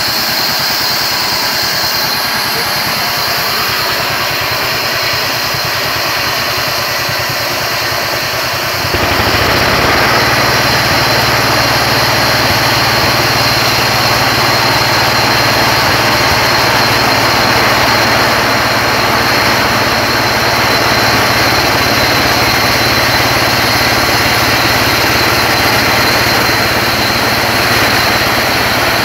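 Engine-driven portable band sawmill running, its band blade sawing lengthwise through a wooden beam. The sound is steady, then grows louder and deeper about nine seconds in.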